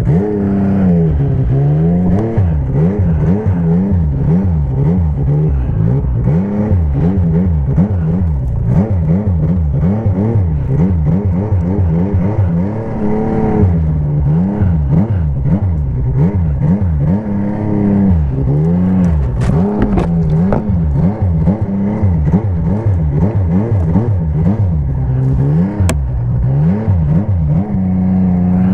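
Snowmobile engine being throttled on and off over and over, its pitch rising and falling about once a second. It holds a steady note briefly midway through and again near the end.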